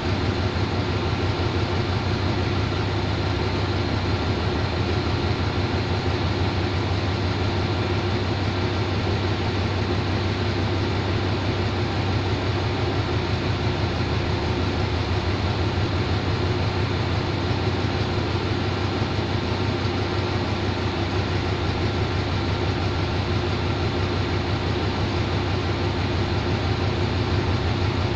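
Diesel-electric locomotive number 4512 idling steadily while the passenger train stands at the platform, a constant low engine hum with no change in speed.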